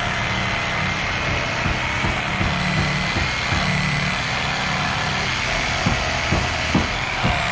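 An engine running steadily with a thin high whine, and several short knocks close together near the end.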